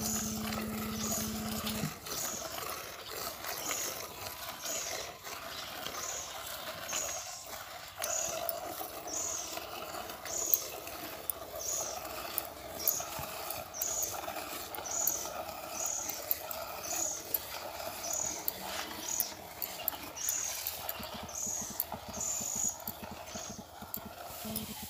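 Milk squirting from a cow's teats into a metal pot during hand milking: short, even squirts at about two a second, as the hands alternate. A low steady hum sounds under it for the first two seconds.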